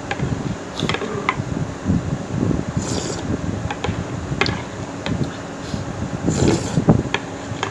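Eating sounds: a metal spoon clinking and scraping against a glass bowl of instant chicken rice porridge, with slurps of the porridge at about three seconds and near six and a half seconds, and chewing and mouth sounds.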